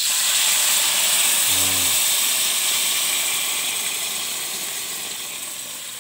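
Pork pieces sizzling in a hot pan with a loud steamy hiss just after the broth is poured in, the hiss dying down steadily over several seconds.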